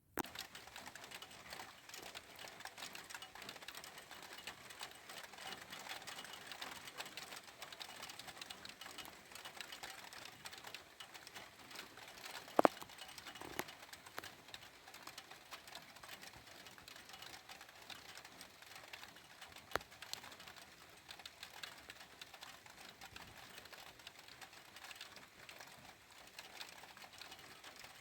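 Rain pattering as dense, fast ticking of drops on a hard surface close by. A sharper, louder tick stands out about twelve and a half seconds in, and another near twenty seconds.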